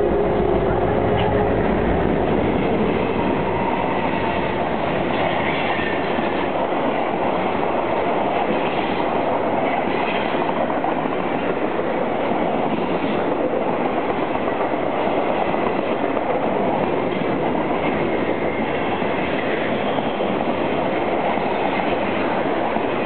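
Freight train passing close by. The diesel locomotives' engine rumble dies away in the first couple of seconds, then the steady rolling rumble of flatcar wheels on the rails carries on.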